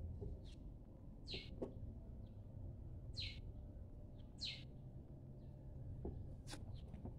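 A bird chirping repeatedly, a short high call about every second and a half, over a faint steady low hum.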